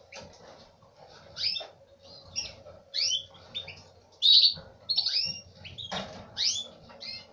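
Canaries calling: a run of short, high chirps that sweep down in pitch, repeated every half second to a second, with a knock about six seconds in.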